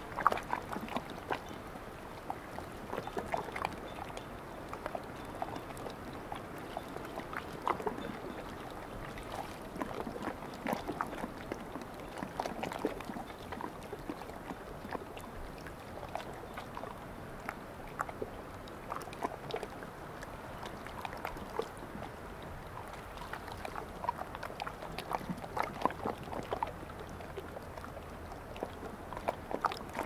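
Small waves of a calm sea lapping at the shoreline, with irregular little splashes every second or so over a steady soft wash.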